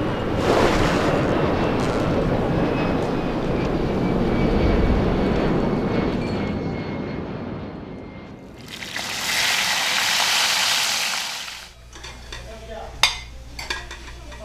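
A steady low rumbling noise for about eight seconds. Then a pan sizzling for about three seconds, which stops abruptly. Then a low hum with a few sharp clinks of kitchen utensils near the end.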